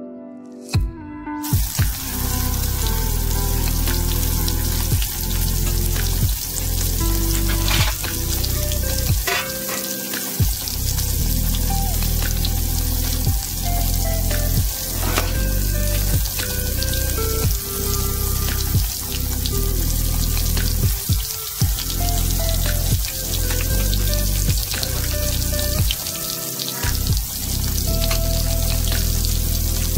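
Breaded tilapia fillets deep-frying in hot vegetable oil in a cast iron skillet: a steady crackling sizzle that starts suddenly about a second and a half in, with background music underneath.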